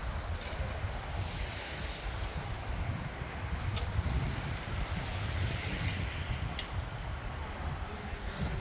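Wind buffeting the microphone over steady outdoor street noise as road bicycles ride past, the hiss swelling now and then, with two sharp clicks.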